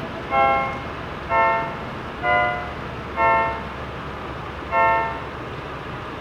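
Five short pitched notes, each about half a second long, played over the steady low rumble of a moving car. The third note is a little lower than the others, so they form a small tune rather than one repeated tone.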